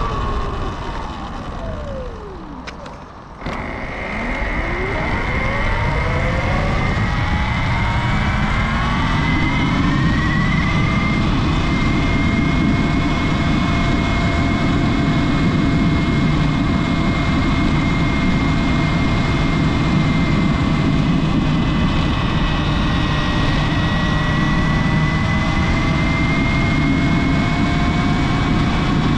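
Sur Ron Light Bee electric dirt bike's motor whine falling as it slows almost to a stop, then rising steeply as it accelerates hard and holding a high steady pitch at speed. A loud, steady rushing noise runs beneath it once it is moving.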